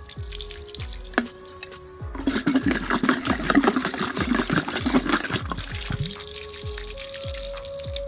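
Water and pebbles sloshing and rattling inside a plastic coolant reservoir bottle as it is shaken to scour out dirt, a dense rattle lasting about three seconds from about two seconds in. Background music with a steady beat plays throughout.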